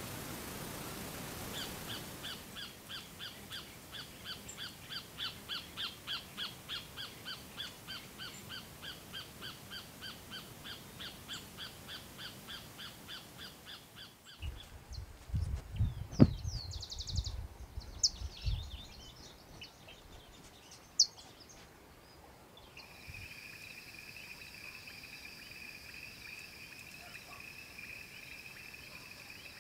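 Outdoor field sound from trail cameras. A bird calls over and over in an even series, about three calls a second, for roughly twelve seconds. Then come a few seconds of low thumps with some high chirps and a single sharp click, and after that a steady high insect trill in the night.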